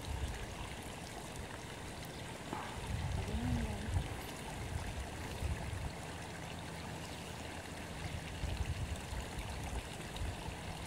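Steady rushing outdoor background noise with an unsteady low rumble underneath; a faint short pitched sound comes about three and a half seconds in.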